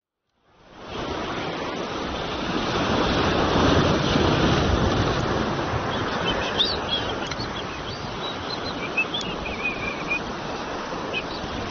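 Sea surf washing over shore rocks, with wind on the microphone, fading in about half a second in and running as a steady rush; a few faint high chirps come through in the middle.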